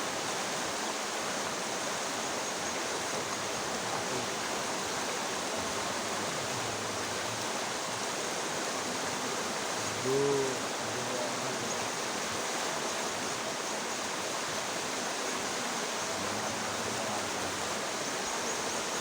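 Steady rushing of river water. About halfway through there is one short pitched call with a rise and fall, louder than the water.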